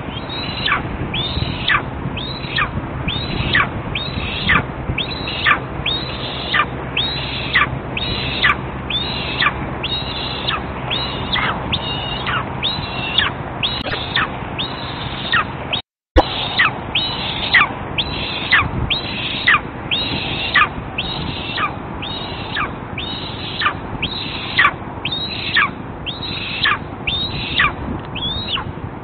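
Young eastern imperial eagle begging with a high, downward-sliding call repeated about one and a half times a second without a break. The sound drops out for a moment about halfway through.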